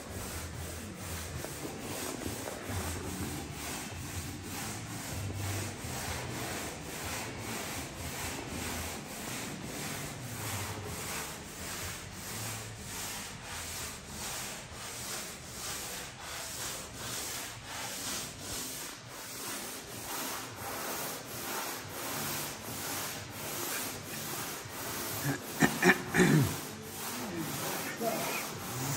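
Hand sanding of a filler-primed car body panel, the abrasive rubbing in steady back-and-forth strokes about twice a second. A brief louder squeak-like noise comes about three seconds before the end.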